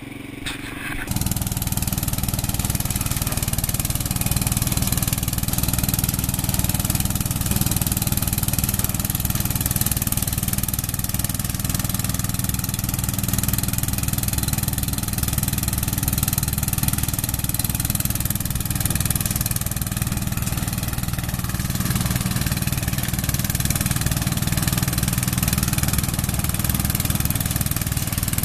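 Riding lawn mower engine running steadily as the mower cuts and shreds tall, dense brush. The sound comes in suddenly about a second in.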